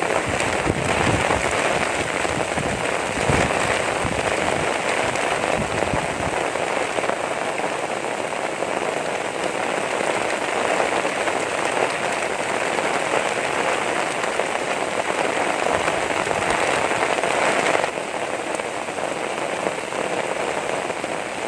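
Heavy rain falling steadily in a downpour, with a few dull low knocks in the first several seconds. It eases slightly near the end.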